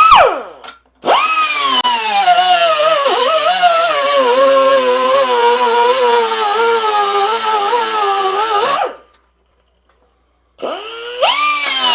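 Electric cutoff tool with an abrasive wheel cutting metal: a short burst that winds down, then it spins up and runs for about eight seconds, its whine dipping and wavering as the wheel bites. It stops, and spins up again near the end.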